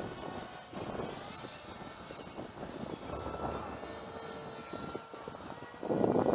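The 64 mm electric ducted fan of a radio-controlled Freewing F-18 jet whining faintly and steadily in flight, its pitch stepping up slightly about a second in. A louder rush of noise comes in near the end.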